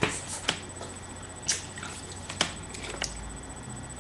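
About five short, soft lip smacks spaced irregularly: a woman kissing at a Great Dane.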